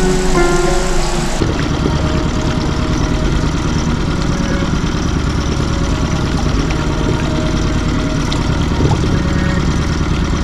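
Music cuts out about a second in, then a Mercury outboard motor runs steadily, driving the boat along under way.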